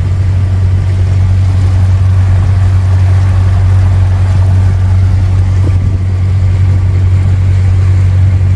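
Inboard engine of a hired canal cruiser running steadily under way, a constant low drone.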